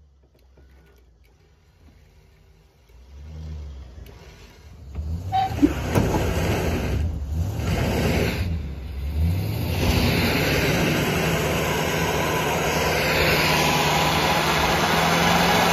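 Full-size 4x4 pickup truck's engine revving up and held at high revs under load, hitched to a car trailer. It builds a few seconds in and then runs loud and steady.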